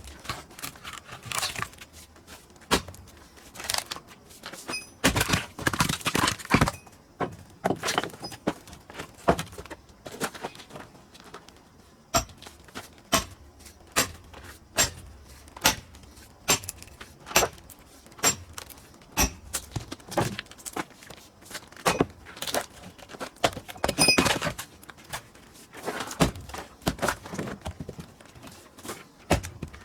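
Firewood-splitting work on pine: a run of sharp knocks and wooden thuds, about one a second through the middle stretch, with a ringing metallic strike about five seconds in and again later on.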